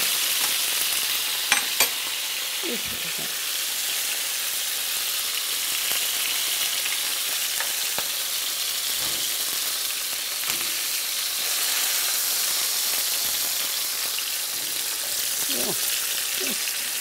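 Floured pieces of salt cod frying in oil in a skillet: a steady sizzle. A couple of sharp clicks come about a second and a half in.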